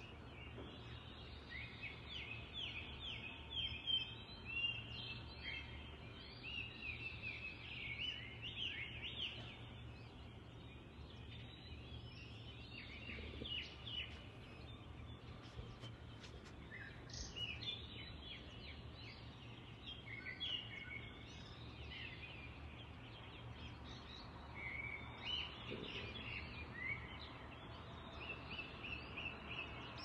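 Dawn chorus of songbirds: many short overlapping chirps and trills, with a few louder calls, over a low steady rumble.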